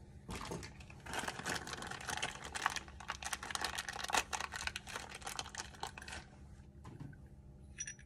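Handling noise from picking up and working a small metal N male coax connector in the hands: a dense run of light clicks and rustling for several seconds that quietens after about six seconds.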